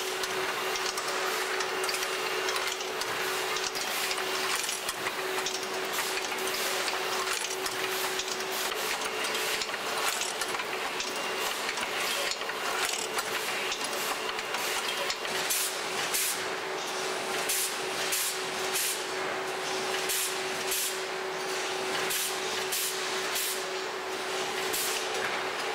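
Spaghetti folding and packaging machinery running: a steady machine hum with one constant tone under a broad hiss. Short sharp hisses, many in the second half, come over it at irregular intervals.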